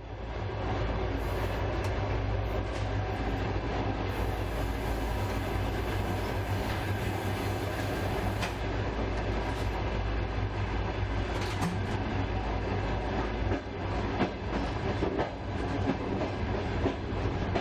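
Train running along the track: a steady low rumble with scattered clicks from the wheels.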